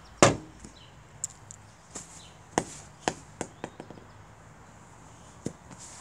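Sharp knocks: one loud knock just after the start, then a run of knocks about halfway through that come quicker and quicker, and one more near the end.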